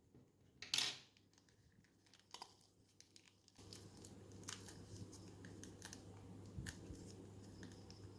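Plastic ziplock bag being handled: a short loud rip or rustle a little under a second in, then scattered soft crinkles and clicks.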